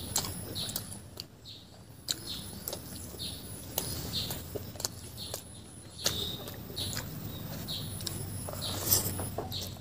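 Close-miked chewing with wet mouth smacks and clicks from a person eating a fried chicken leg and fried rice by hand, about two smacks a second, with a quieter pause early on.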